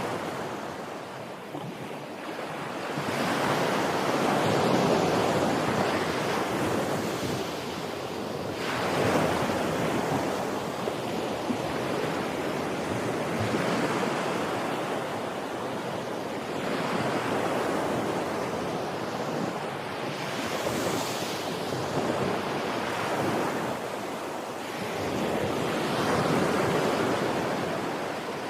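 Sea waves washing onto a shore, swelling and receding every few seconds, with some wind noise on the microphone.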